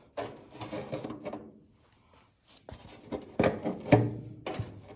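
Old foam being scraped and rubbed off a removed panel part by hand, in uneven strokes with a short pause. Near the end come a few clicks and two sharp knocks about half a second apart.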